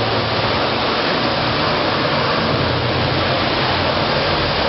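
Steady rush of water pouring down in a curtain around a large fountain.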